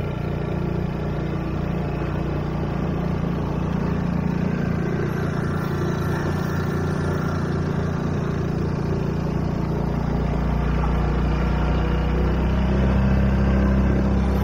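Boat outboard motor running steadily under way, speeding up slightly over the last few seconds.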